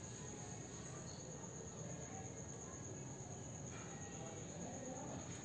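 Faint room tone with a steady high-pitched trill and a low hum; no music comes from the Kenwood SG-5MD mini system. Its optical digital input is getting no signal, probably because the optical cable is loose.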